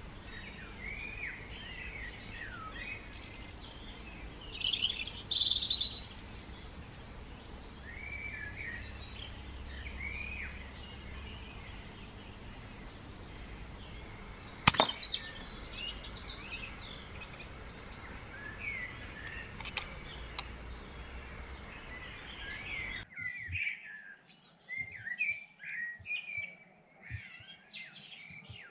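Wild birds chirping and singing, with a single sharp crack about halfway through from a .177 FX Impact X PCP air rifle being fired.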